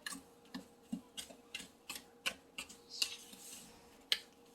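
A fork clicking and scraping against a mixing bowl while stirring a damp powder mix, about two to three uneven clicks a second, with one louder click near the end.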